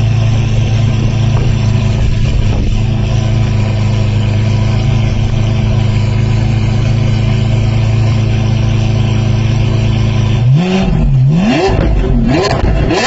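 Lamborghini Aventador SVJ's V12 engine idling steadily through its exhaust, then revved in several quick blips from about ten seconds in, its pitch rising and falling with each one. Very loud.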